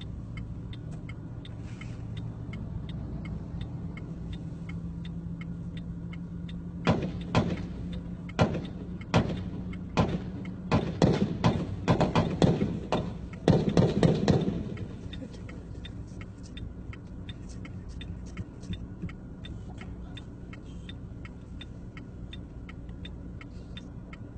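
A string of gunshots, about fifteen in all. They start about seven seconds in as single shots roughly a second apart, quicken, and end in a rapid cluster a little past halfway, then stop.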